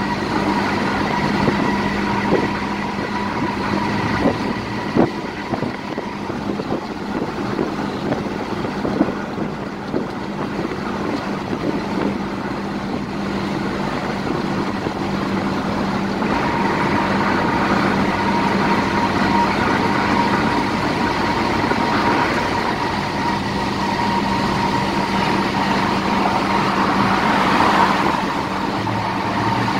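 Inside a car cabin at highway speed: steady tyre and road noise on concrete pavement, with the car's engine running and a constant hum. A few light knocks come in the first ten seconds or so.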